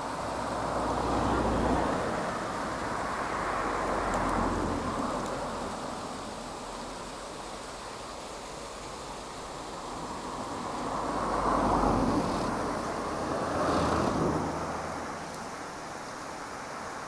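Road traffic: several cars passing close by one after another, each swelling up and fading away, over a steady background hiss.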